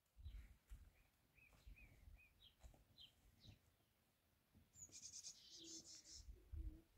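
Faint small-bird chirps, a string of short rising-and-falling notes through the first half, with a brief scratchy rustle about five seconds in and a few soft low thumps.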